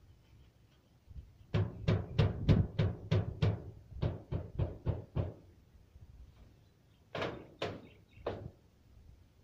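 A quick run of about a dozen sharp knocks, roughly three a second, then a pause and three more near the end: a pole or tool striking the roof while volcanic ash is cleared off it.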